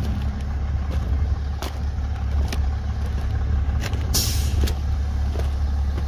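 Steady low rumble of a diesel concrete pump truck idling, with footsteps ticking on foam floor-insulation panels about once a second and a short hiss about four seconds in.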